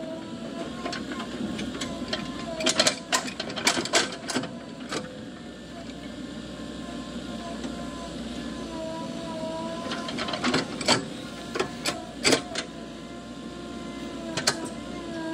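Diesel engine of earthmoving machinery running steadily, its pitch rising and falling slightly as it works, with clusters of sharp knocks and clanks about 3 to 5 seconds in and again 10 to 12 seconds in.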